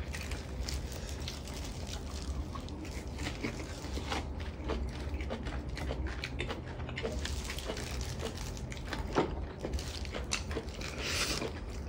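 Quiet eating at a table: irregular small clicks and taps of chopsticks against bowls and plates, with soft biting and chewing of braised mackerel, over a low steady room hum. Near the end comes a brief hiss.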